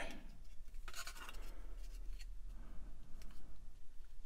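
Small scrapes and light clicks of plastic model parts being handled and pressed together by hand, with the longest scrape about a second in, over a steady low electrical hum.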